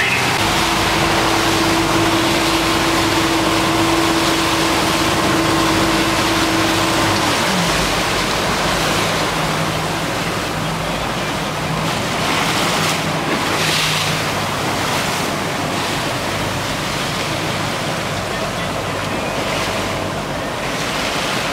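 Wind and water rushing past a motorboat under way, with its engine running at a steady pitch. About seven seconds in, the engine note drops sharply as the boat throttles back.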